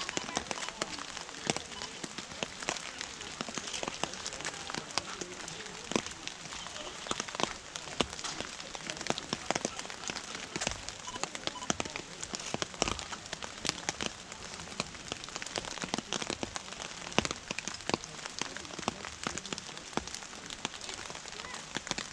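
Rain falling, with many individual drops striking close by as irregular clicks over a steady hiss.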